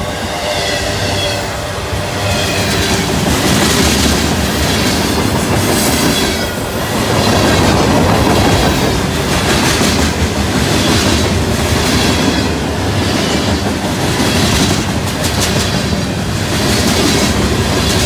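Freight cars of a mixed freight train rolling past at close range: a steady rumble of steel wheels on rail, with repeated clickety-clack as the wheels cross rail joints.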